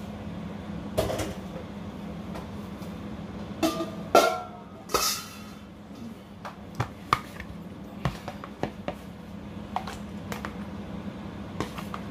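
Metal pan and lid knocking and clinking against the glass bowl of a halogen turbo convection oven as the pan is set in, a few loud ringing clanks near the middle and lighter ticks after, over a steady low hum.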